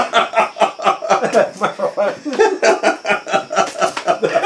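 Men laughing heartily in quick repeated chuckles that keep going.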